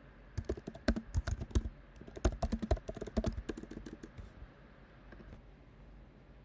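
Typing on a computer keyboard: a quick, uneven run of key clicks that stops about four seconds in.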